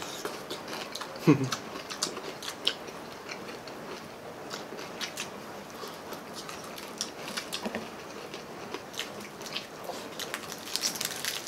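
Close-up eating sounds of crispy fried chicken drumsticks and deep-fried pork knuckle: many short crunches, chewing and wet mouth clicks. About a second in comes a brief falling vocal sound from one of the eaters, the loudest moment.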